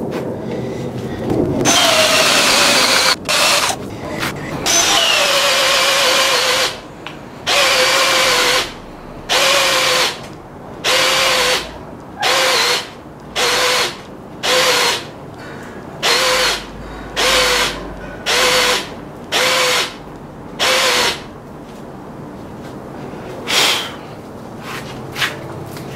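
Porter-Cable 20V cordless drill boring into a wooden beam, its motor whining. It runs continuously for a few seconds, then starts and stops in about a dozen short spurts close to once a second.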